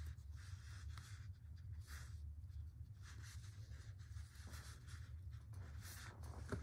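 Faint rustling and scratching of yarn being handled as two yarn tails are pulled and tied into a tight knot, over a steady low hum.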